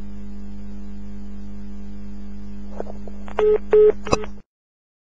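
Steady electrical hum on a recorded telephone line, then two short beeps and a click about three and a half seconds in, before the sound cuts off abruptly to dead silence.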